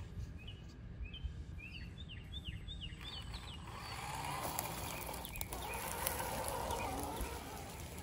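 Small birds chirping in quick, falling chirps for the first few seconds. Then a steady whir rises about four seconds in and holds until near the end: the 1/10-scale crawler's 550 brushed electric motor and gears driving, with one sharp click midway.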